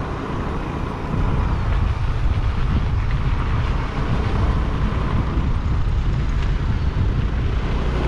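Steady riding noise from a motor scooter on the move: the engine running under a low, even rumble of wind and road.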